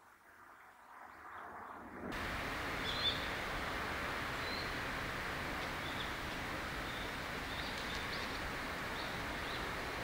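Steady outdoor background hiss that comes in abruptly about two seconds in, with faint short high bird calls every second or so.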